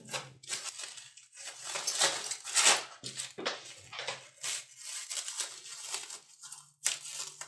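Plastic cling film crinkling and crackling in irregular bursts as it is pulled open by hand from around wrapped puff pastry, loudest about two to three seconds in.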